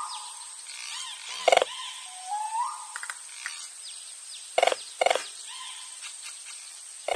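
Nature-ambience sound effect of animal calls: rising whistled calls and a few sharp, louder calls, about a second and a half in and twice near the five-second mark, over a steady high-pitched tone.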